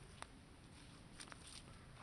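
Near silence, with a few faint short clicks: one just after the start and a small cluster a little past halfway.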